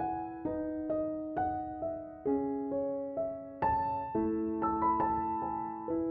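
Gentle background piano music: single notes struck about every half second over held lower notes, each note dying away.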